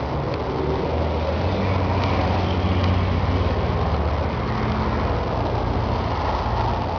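Massey Ferguson 383 tractor's diesel engine idling steadily, a little louder for a couple of seconds in the middle.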